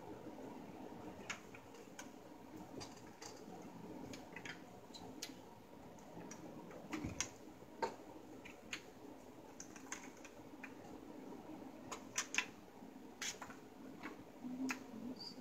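Scattered light clicks and taps of plastic parts being handled while a ring light and tripod stand are put together, over a faint steady hum.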